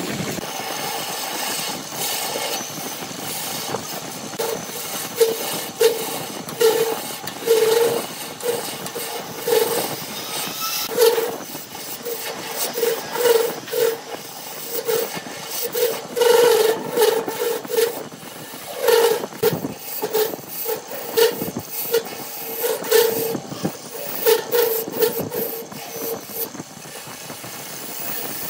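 Turning tool cutting a spinning wooden cup on a wood lathe: a steady hiss of the cut, swelling in uneven rough pulses about once or twice a second as the tool is pushed into the wood. In the second half, as the tool hollows the inside of the cup, many short sharp ticks and scrapes are added.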